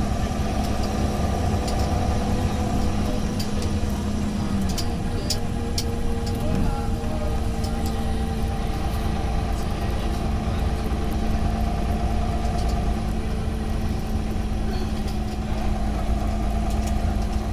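Cummins ISL 8.9 inline-six diesel of a Thomas Saf-T-Liner HDX school bus running, heard from inside the passenger cabin as a steady low rumble with a steady hum over it. A few light clicks come through, most around five to six seconds in.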